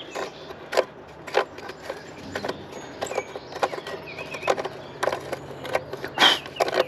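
Hand tools clicking and tapping against metal parts of the engine: an irregular run of sharp clicks and light knocks, several a second, over a faint steady hum.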